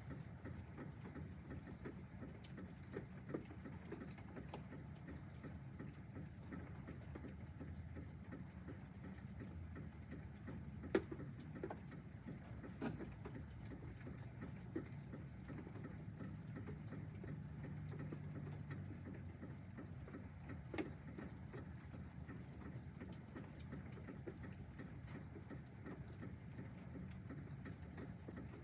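Faint steady rain during a thunderstorm, with scattered drips ticking and a few sharper drip taps about eleven, thirteen and twenty-one seconds in.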